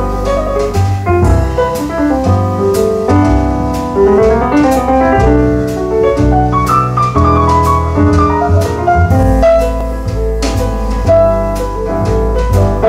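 Jazz instrumental passage with the piano out front over drums, cymbal strokes ticking along steadily.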